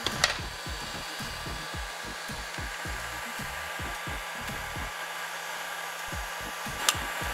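Electric heat gun blowing steadily. Two sharp clicks, one just after the start and one near the end, come from a steel pick prying at the radar sensor's plastic housing.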